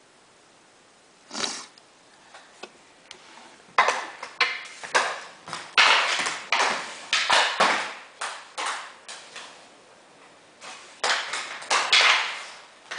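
Reebok hockey stick knocking a street-hockey ball about on a tiled floor while stickhandling: a quick run of sharp clacks and taps that echo in the hard-walled room. It starts about a second and a half in, bunches thickest in the middle, pauses briefly near the end and then comes again in a second flurry.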